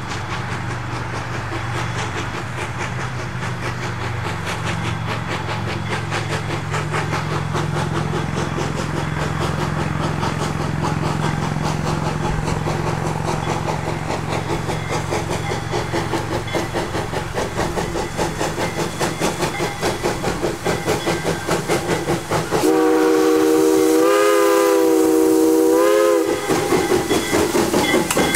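Jeddo Coal No. 85, a saddle-tank steam locomotive, chuffing rhythmically as it approaches, growing steadily louder. About 23 seconds in it sounds one long steam whistle blast of several notes at once, lasting about three and a half seconds.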